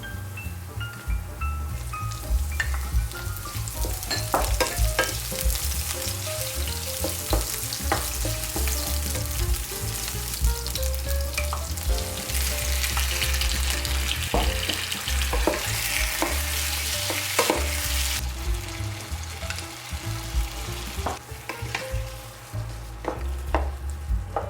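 Food sizzling as it fries in a pan while being stirred, with scattered knocks of a utensil against the pan. The sizzle swells loudest about halfway through. Soft background music plays underneath.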